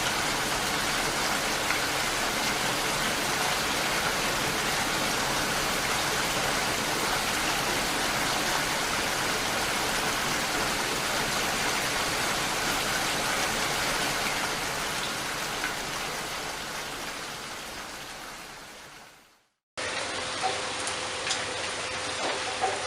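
Steady rain falling, which fades out about three quarters of the way through. After a brief silence, a second rain recording starts with individual drops tapping and a faint steady hum.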